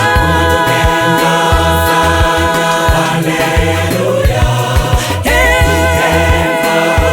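A choir singing a gospel song over a steady beat of drums and bass. Voices glide up into long held notes at the start and again about five seconds in.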